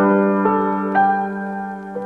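Slow, soft piano music: a chord at the start, then single sustained notes struck about every half second to second.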